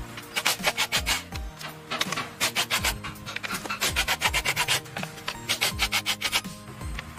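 Cordless impact wrench hammering in several short bursts of rapid clicks as it undoes bolts on the engine, over background music with a low beat.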